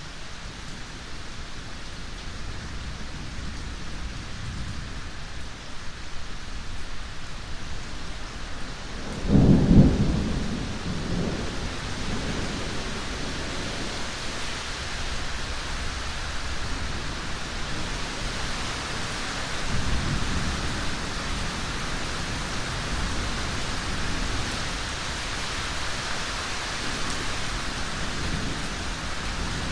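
Steady rain during a thunderstorm, with a loud thunderclap about a third of the way in that rolls on for a couple of seconds, and a fainter roll of thunder about two-thirds of the way through.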